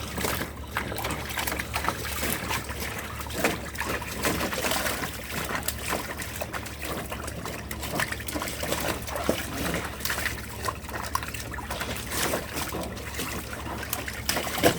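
Water splashing and trickling, a steady wash dotted with many small irregular splashes, with one sharper splash near the end.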